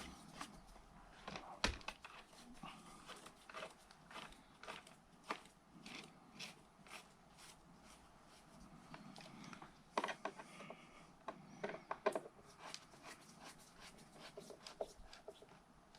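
Irregular small clicks and taps of hand work on a wall switch or socket plate, a screwdriver and screws being handled, with a few sharper knocks.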